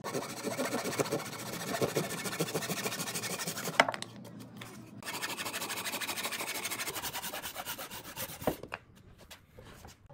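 Hand saw cutting across a block of reclaimed pallet wood in quick back-and-forth strokes, in two bouts with a short pause about four seconds in; a single sharp knock near the end.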